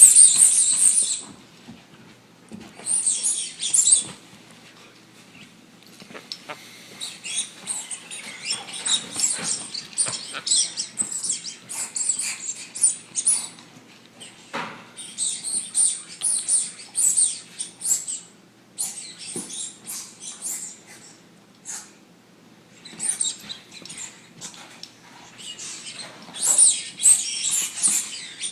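Labrador Retriever puppy making scratchy, clicking noises in repeated bursts of a second or two, with short quiet gaps between them.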